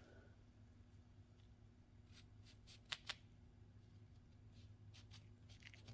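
Faint rustling and handling of small parts, with two sharp clicks close together about three seconds in, over a steady low hum.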